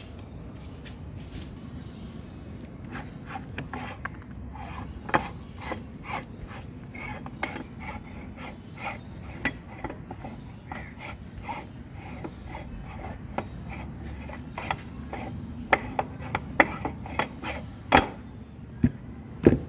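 Gritty scraping and rubbing of candy being forced through a metal meat grinder's cutting plate, with many small clicks of metal parts. Near the end come sharper metal clicks and knocks as the grinder's plate and ring nut are handled.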